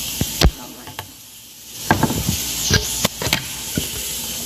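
A few sharp knocks and clatters, one about half a second in and a quick cluster in the second half, over a steady high hiss, as things are handled around kitchen cupboards.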